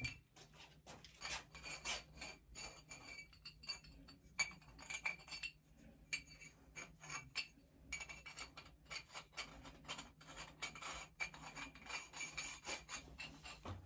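Irregular rasping and scraping strokes, a few a second, of threaded steam-pipe fittings being handled and screwed together by hand, metal threads rubbing against each other, over a faint steady low hum.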